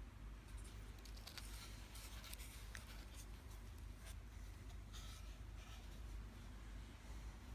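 Faint rustling and light clicks from handling a new Zippo lighter still sealed in its plastic wrapper, over a low steady hum.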